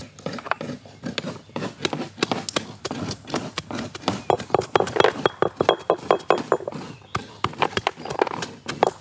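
Stone roller of a traditional grinding stone knocking down on cube jaggery on the stone slab, crushing it: a run of hard, irregular knocks, several a second.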